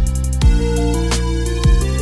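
Electronic music: held bass notes with a heavy kick drum twice and lighter percussion ticks.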